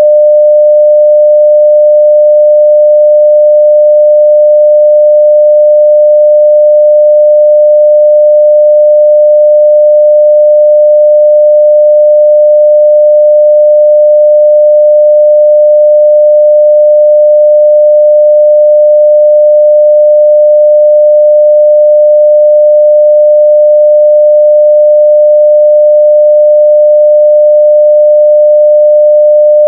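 Pure 600 Hz sine-wave test tone at full scale, held at one steady pitch and level.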